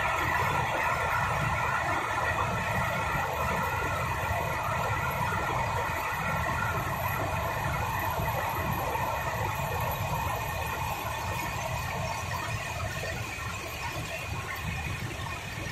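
Jute mill yarn machinery running: a steady mechanical din with a high whine, slowly getting quieter.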